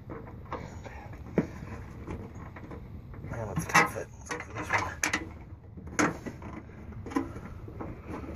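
Scattered knocks, clinks and rustling of hand work on a pickup truck's sheet-metal fender and its bolts, with one sharp knock about a second and a half in.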